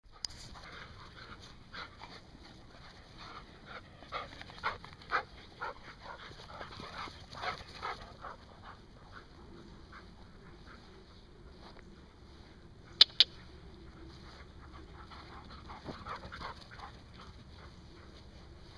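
Several terriers playing and play-fighting, giving short yips and whimpers in quick runs, busiest in the first half and again a few seconds before the end. Two sharp clicks, the loudest sounds, come close together about two-thirds of the way in.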